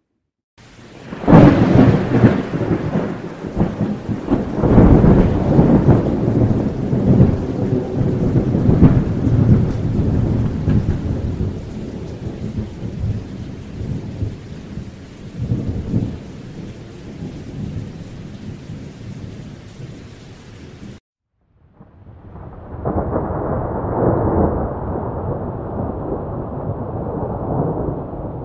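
Thunder rolling with rain hiss: a long peal that breaks about a second in, is loudest over the first several seconds, then fades and cuts off suddenly about two-thirds of the way through. After a moment of silence a second, more muffled rumble of thunder starts.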